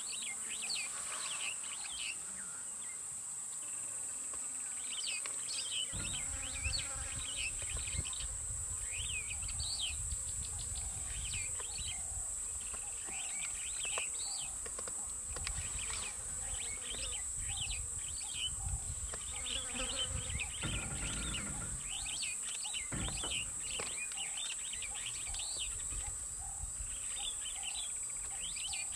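Insects droning in one steady high tone, with many short bird chirps and calls over it. A low rumble comes in about six seconds in and drops out briefly later on.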